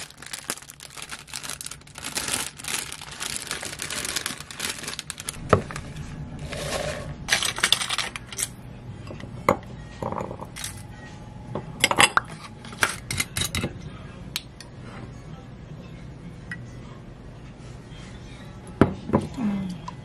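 Rustling at the start, then sharp clinks and knocks as ice balls are handled and dropped into a stemmed glass, and near the end the short gurgle of whiskey poured over the ice.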